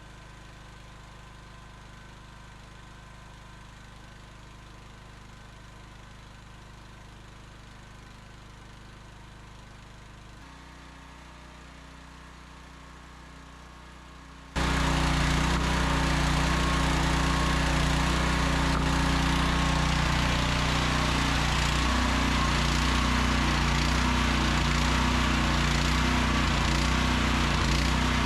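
Mini excavator's small gasoline engine running steadily while it burns off the last of its fuel before winter storage. It is faint for the first stretch, then abruptly much louder about fifteen seconds in, with a slight change in engine speed a few seconds later.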